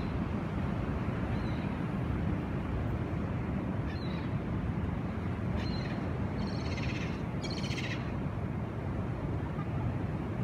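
Two short trilled calls from an animal, most likely a bird, about a second each, one straight after the other past the middle, over a steady low rumble.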